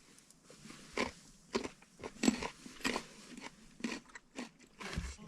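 Someone chewing crunchy food close up, a quick series of crisp crunches about every half second.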